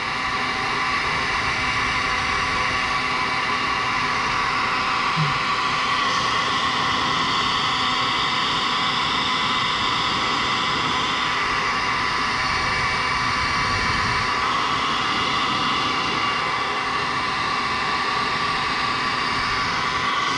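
Electric heat gun blowing steadily with a motor whine, held on a thermoplastic heat-shrink hose clamp to shrink it down onto a coolant hose.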